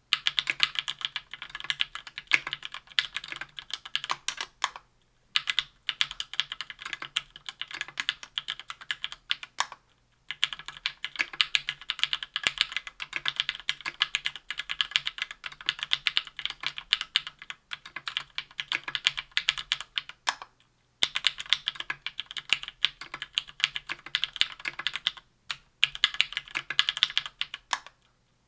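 Typing on a KBDfans Tofu 60% aluminium keyboard with lubed SP-Star White Meteor 57g linear switches on an aluminium plate, under GMK keycaps. The keystrokes come fast and continuous, with four brief pauses.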